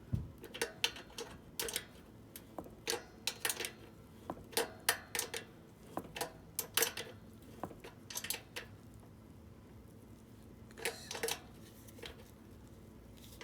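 Irregular metallic clicks and clinks of a hand wrench working the chain adjuster bolt on a minibike, with a short pause before a last few clicks.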